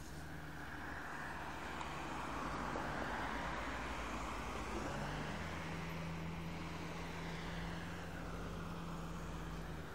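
A car passing close by, its tyre and engine noise swelling and fading, over the steady low running of a Scania CN280UB city bus's diesel engine, which carries on alone after the car has gone.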